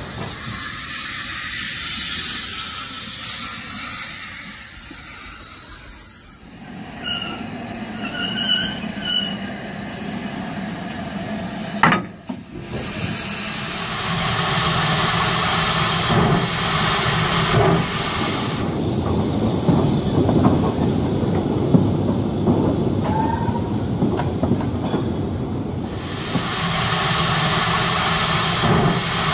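Model steam locomotive, a Hornby BR Standard 2MT, hauling goods wagons on a model railway: steam hiss and chuff with wheels rolling and squealing on the track. It is quieter at first, with a sharp click about twelve seconds in, and louder and steady from about fourteen seconds.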